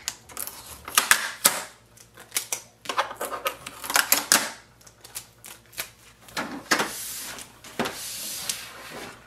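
Protective packing tape being peeled off a printer's plastic casing: a run of sharp clicks and crackles, then a longer steady peeling noise about seven seconds in.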